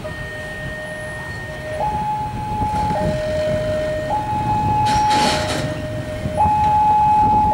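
Railway level-crossing warning siren starting up: an electronic two-tone alarm alternating between a low note and a higher note, each held about a second, warning that a train is approaching. Road traffic runs underneath, with a brief hiss about five seconds in.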